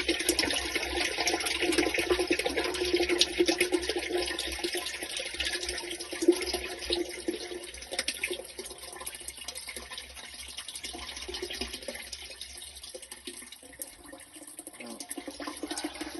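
Water rushing and splashing through a drain, loud at first and tapering off over the second half.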